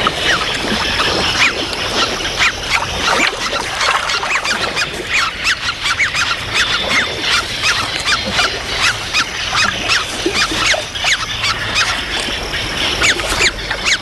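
Great crested grebes calling at the nest: a quick, continuous series of short, high calls, several a second.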